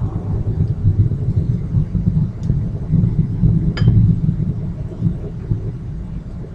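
Low steady rumble with two faint, light clicks, about two and a half and four seconds in, of a utensil or pot rim knocking as cooked brown rice is transferred from a pot into a bowl.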